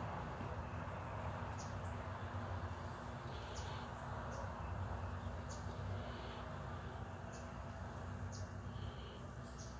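Outdoor background: a steady low hum and hiss, with short high chirps recurring every one to two seconds.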